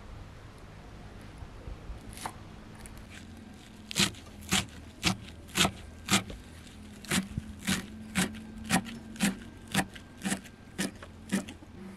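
Chef's knife chopping fresh green herbs on a round wooden log-slice cutting board: sharp, even knocks of the blade on the wood, about two a second, starting about four seconds in with one short break halfway.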